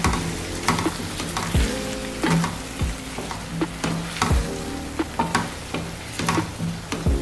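A wooden spatula stirring thick tripe stew in a stainless steel pan, scraping and knocking against the pan about twice a second, while the stew sizzles.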